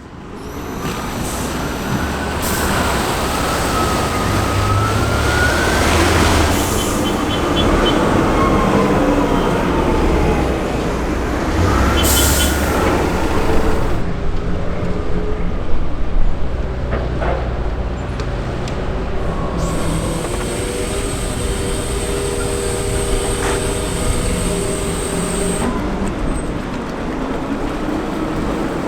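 Heavy vehicle engines of M3 amphibious bridging rigs running, with whines that rise and fall as they work; the sound changes abruptly a few times, around halfway and again later.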